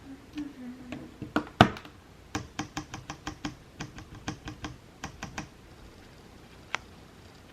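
Keystrokes on a newly built QK65 mechanical keyboard with lubed Gateron Milky Yellow linear switches, being tested. They come as a quick irregular run of clacks, with one louder knock about a second and a half in and a few single presses near the end.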